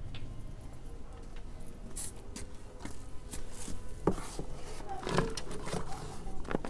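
Digging by hand in potting soil in a container: irregular scrapes, crunches and clicks as soil is loosened and moved, busier in the second half.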